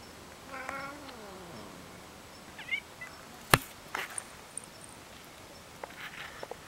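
A domestic cat gives one long, low meow that falls in pitch, about half a second in. A sharp click about halfway through is the loudest sound, with a few fainter clicks after it.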